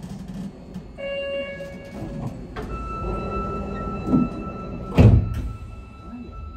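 Subway train door-closing sequence: a short steady chime, then a held tone, and a loud thunk about five seconds in as the doors shut, over the low hum of the car.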